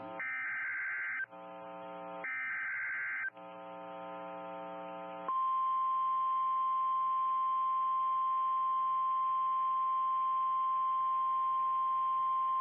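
NOAA Weather Radio emergency alert: two short raspy bursts of SAME digital header data, then from about five seconds in the steady, loud 1050 Hz warning alarm tone, the signal that a new warning follows.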